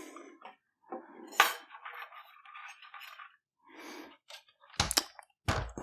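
Small metal parts being handled: light clicks and clinks of screws and a screwdriver, with a sharp click about a second and a half in and a quick cluster of clicks near the end.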